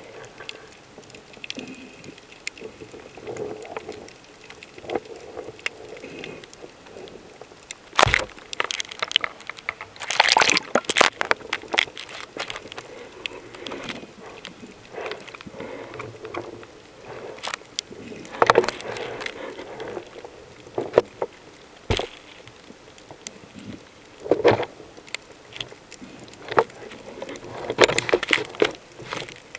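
Underwater recording: repeated bursts of bubbling and gurgling water several seconds apart, over a faint steady crackle, with one sharp click a little past the middle.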